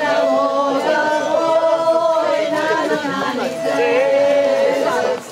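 Several voices singing a song together without instruments, holding long notes.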